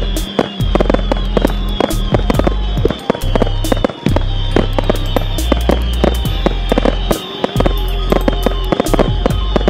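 Fireworks display with many sharp bangs and crackles at irregular intervals, mixed with background music that has held bass notes changing every second or so and a high falling figure that repeats.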